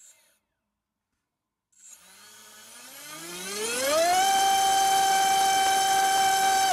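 Cobra 2204 2300 kV brushless motor spinning a 5x4.5 bullnose propeller on a thrust stand. It is throttled up to full power for a thrust test: a whine starts about two seconds in, rises in pitch for about two seconds, holds steady and loud, and begins to drop right at the end as the throttle comes off.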